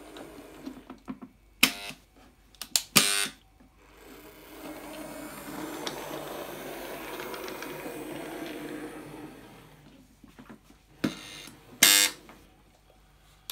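Model railway point motors firing on 16 volt AC: loud buzzing clacks as the points are thrown, twice in the first few seconds and twice near the end. In between, a small OO gauge class 08 shunter model's motor runs steadily as it crosses the pointwork.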